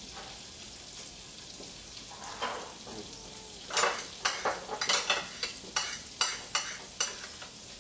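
Garlic frying in butter in a hot stainless steel skillet, sizzling steadily. From about four seconds in, a quick run of sharp scrapes and clicks from a utensil.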